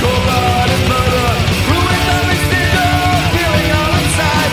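Heavy/speed metal song playing loud: a full band with electric guitars, bass and fast, driving drums.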